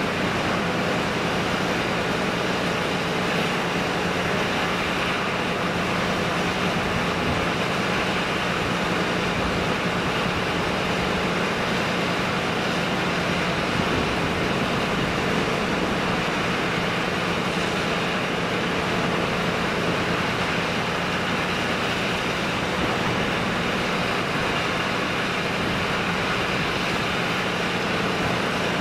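A ship's diesel engine running with a steady low drone under an even hiss of wash and air.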